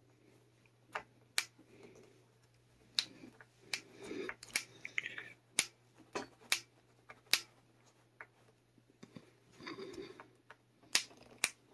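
Faint, irregular sharp clicks and small taps of a string tree and its screw being handled and turned into a guitar headstock with a small screwdriver, with brief rustling of hands between them.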